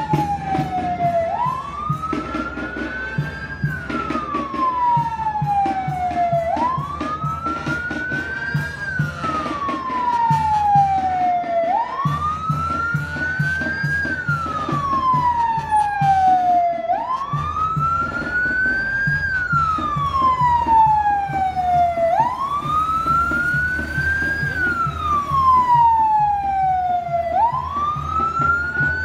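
Police pickup truck's siren wailing in a slow cycle: each cycle sweeps up quickly and then falls slowly, repeating about every five seconds, about six times. A rhythmic low sound runs beneath it.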